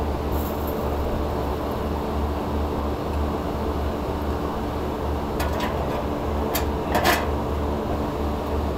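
Steady machinery hum with a pulsing low drone, like running rooftop air-conditioning plant. A few sharp clicks and knocks of hand tools on the blower housing come between about five and seven seconds in, the loudest near the end of that stretch.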